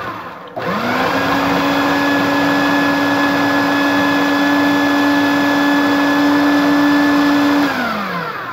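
Electric food processor motor chopping cubed raw steak into tartare. It dips briefly and starts again about half a second in, with a quick rise in pitch, runs at a steady hum for about seven seconds, then winds down with a falling pitch near the end.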